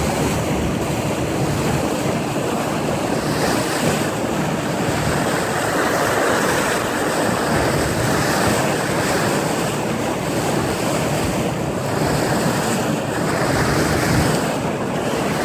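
Steady rush of water along the hull of a moving fishing boat, mixed with wind buffeting the microphone.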